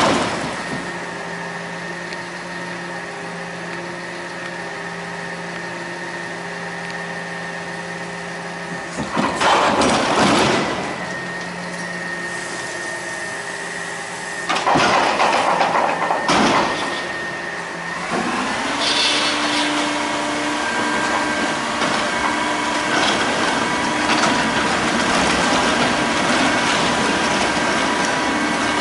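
A CNG-powered CCC Amrep front-loader garbage truck running with its hydraulics, with two loud noisy surges lasting a second or two about a third and halfway in as the dumpster is handled by the lift arms. From about two-thirds in the engine speeds up and runs higher and steadier as the hydraulics drive the packer.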